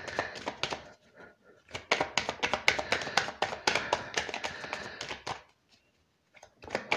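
Tarot deck being shuffled by hand, overhand: a rapid patter of cards flicking and slapping against each other, in two runs with a short pause about a second in, stopping about five and a half seconds in.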